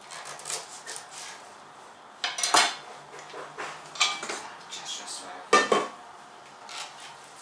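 Knife tapping on a wooden cutting board while chopping cabbage, then a metal pot knocking and clanking as it is handled and set down, with three sharp knocks about a second and a half apart.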